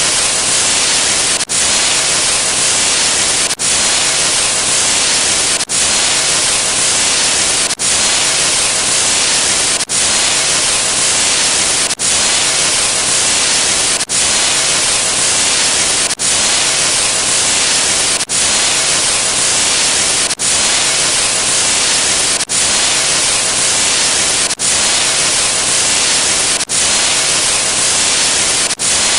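Loud, steady hissing static sound effect, like white noise, briefly cutting out and restarting about every two seconds.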